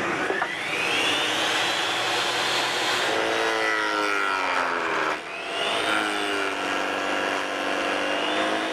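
Portable table saw with a stacked dado blade whining up to speed, then bogging down as it cuts a wide groove into a wooden table leg, its pitch sagging under the heavy bite. The load eases briefly about five seconds in, then the cut goes on.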